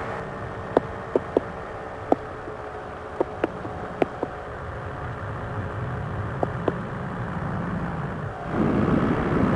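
Paramotor's two-stroke engine running steadily in flight, with wind noise over it and a scatter of sharp clicks in the first half. Near the end a louder rushing swell rises over the drone.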